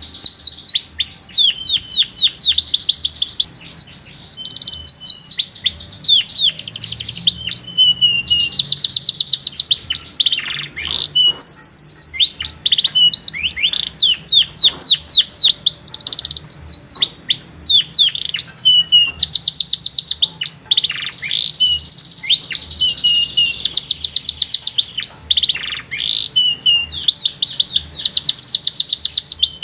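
Domestic canary singing continuously: fast trilled phrases of rapidly repeated high notes, each roll lasting a second or two and running straight into the next.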